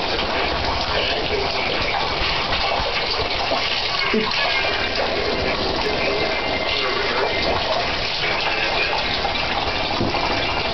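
Shower running: a steady hiss of water spraying and splashing.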